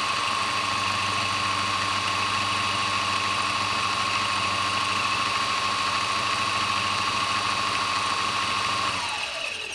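Homemade pickup coil winder running at speed with a steady high whine as it winds enameled wire onto a mini humbucker bobbin. About nine seconds in, the whine falls in pitch as the winder spins down to a stop.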